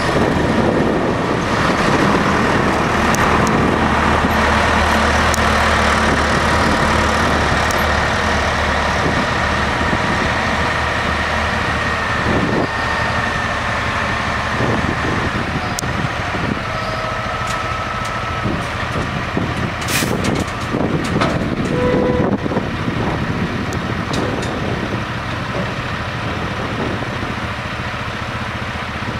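Cat C15 diesel engine of a Freightliner tandem-axle grain truck running steadily while the hydraulic hoist tips the box up, with a steady whine over the engine in the first half. A short burst of air hiss and clicks comes about two-thirds of the way through.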